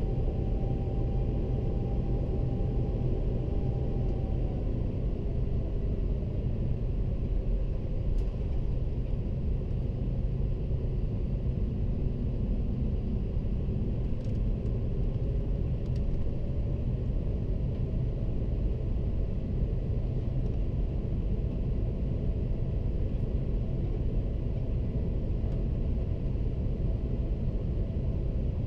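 Airbus A330-300 cabin noise heard from a window seat: a steady, even rumble of jet engines and airflow, with faint engine tones that drift slightly lower in pitch a few seconds in.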